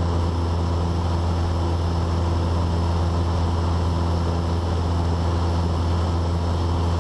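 Cessna 172N's four-cylinder Lycoming engine and propeller droning steadily in flight, heard from inside the cockpit.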